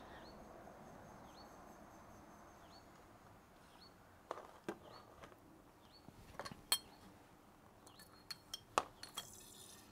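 Faint hiss of beer running through a bottling wand into a glass bottle, then, from about four seconds in, a series of light clinks of glass bottles and the wand's tip knocking against them as the wand is lifted out and moved to the next bottle. A faint high chirp repeats about every second throughout.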